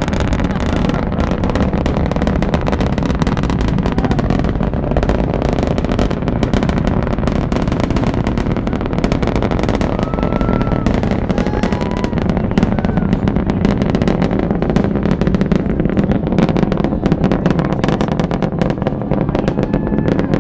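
Space Shuttle Discovery's solid rocket boosters and three main engines firing during launch: a loud, continuous low rumble full of dense crackle.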